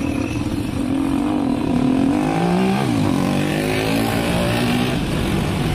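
Motorcycles and cars driving past close by, several engines overlapping, their pitch rising and falling as each one passes, over steady road noise.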